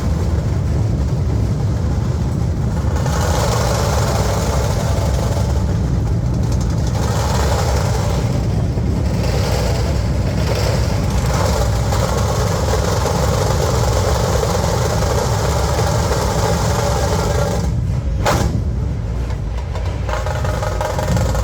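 Massed dhol drums and tasha snare drums of a dhol-tasha troupe playing loudly and continuously.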